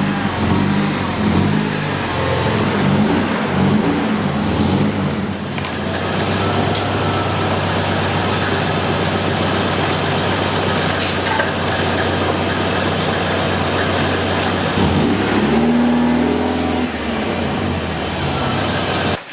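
Nissan 240SX (S13) engine running, its revs rising and falling over the first few seconds, then holding steady, then revving up again briefly near the end.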